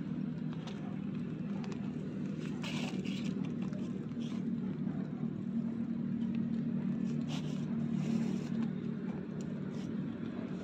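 A steady low engine drone, with a few brief soft clicks and rustles about three seconds in and again around seven to eight seconds.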